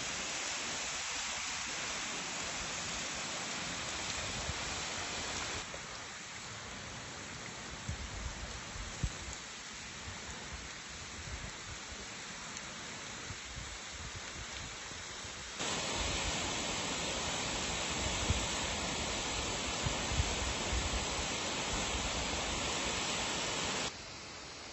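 Rushing water of a partly frozen mountain waterfall, a steady hiss that jumps suddenly in level three times as the shots change, with a few brief knocks.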